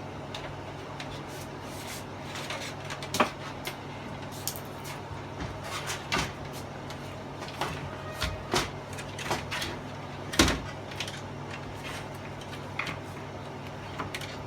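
Plastic back cover of an LED TV being handled and fitted back onto the set: scattered clicks and knocks, the loudest about three seconds in and again about ten seconds in, over a steady low hum.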